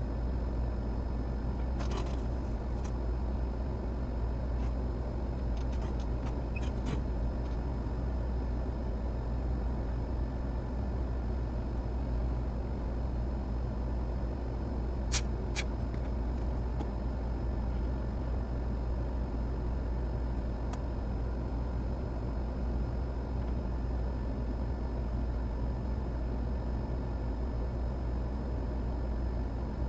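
Steady low hum, with a few faint light clicks: a couple of seconds in, a few around a quarter of the way through, and a sharper pair near the middle.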